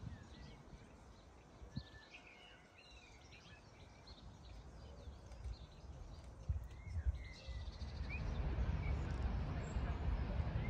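Small birds chirping and twittering in quick short notes. A low rumbling noise builds over the last few seconds and grows louder than the birdsong.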